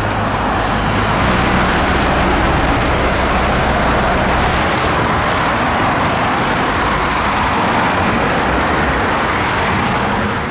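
Dense freeway traffic: a steady noise of cars passing.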